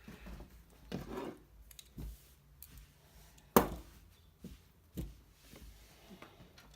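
Hard objects being handled on a work surface: a series of separate sharp clicks and knocks, the loudest about halfway through, with quieter handling noise between them.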